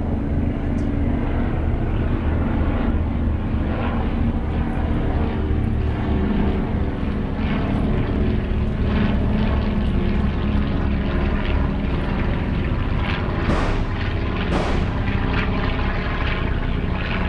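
Truck engine running steadily under way, heard from inside the cab as an even low drone. Two short hisses come about a second apart near the end.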